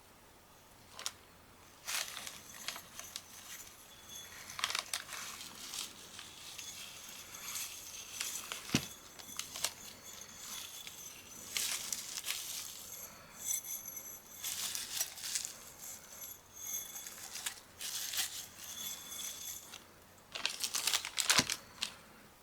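Crinkling and scratchy rustling in irregular bursts as material is handled, with a few sharp clicks; the loudest burst comes near the end.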